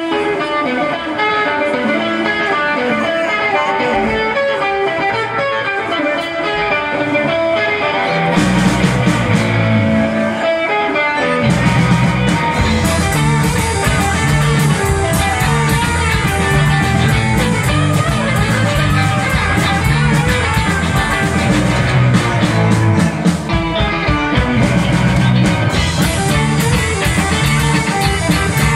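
Surf rock band playing live on electric guitars, bass and drums. The guitars play alone at first, bass comes in about eight seconds in, and the full band with drums joins from about twelve seconds in.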